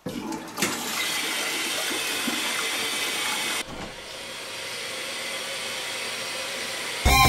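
Toilet flushing as a cat's paw presses the push-button flush on the cistern: a loud rush of water starts at once, then drops suddenly after about three and a half seconds to a softer steady rush. Music comes in at the very end.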